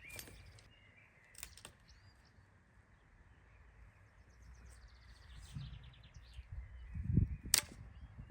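Birds chirping and trilling in the background. A few sharp clicks break in, the loudest near the end, along with low thuds, as if something is being handled close by.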